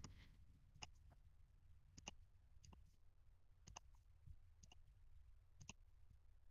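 Faint computer mouse button clicks, roughly one a second and some in quick pairs, as flower centres are shift-clicked one by one with the magic wand to build a selection.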